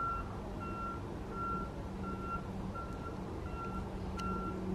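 Vehicle reversing alarm beeping steadily, one short high beep about every 0.7 seconds, over a low steady hum.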